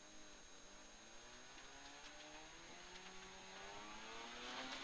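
Mazda RX2 rally car's rotary engine heard faintly from inside the cabin, pulling hard under acceleration with its pitch rising steadily. A louder rushing noise comes in near the end.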